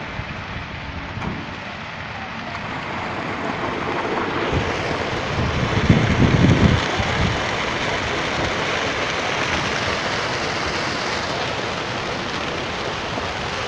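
A wheat field burning: a steady rushing, crackling noise of the fire. About six seconds in, a loud low rumble of wind buffets the microphone.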